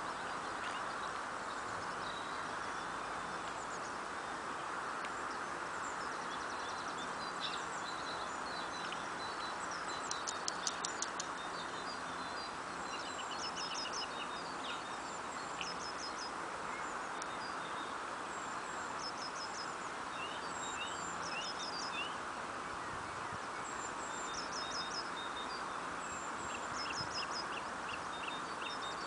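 Small birds chirping, with many short, high, quickly falling notes repeated in runs, over a steady background rush.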